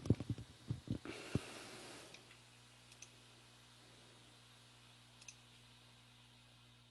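A quick run of clicks and knocks in the first second and a half, with a short hiss, then two faint single clicks later on.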